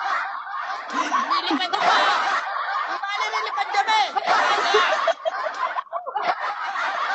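People laughing, a woman among them, in quick repeated bursts mixed with other voices.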